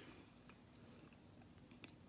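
Faint close-up chewing of food, with a soft mouth click about half a second in and another near the end.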